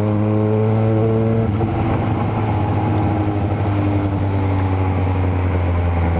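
Yamaha XJ6N's inline-four engine through a Power GP2 4x1 full aftermarket exhaust, running at a steady, low engine speed while riding. The pitch steps slightly about a second and a half in, then holds even.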